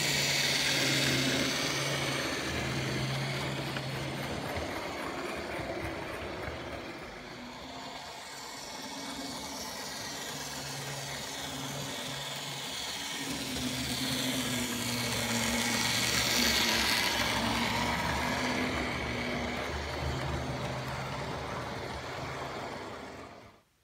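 Model railway diesel locomotive hauling coaches along the track, its motor giving a steady low hum over the rattle of the wheels on the rails. It is loudest as the train passes close by, about a second in and again around sixteen seconds, and it cuts off suddenly near the end.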